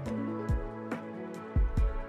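Background music with a steady beat: low thumps and light high clicks over held tones.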